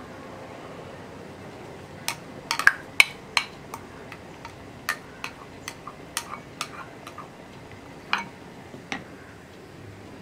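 A spoon knocking and scraping against the rim and inside of a bowl in an irregular run of sharp clicks, starting about two seconds in, as thick ground coconut paste is scraped out of the bowl into a pot.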